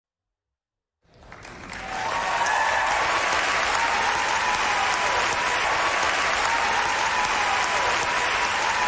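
Audience applause, fading in about a second in and then holding steady.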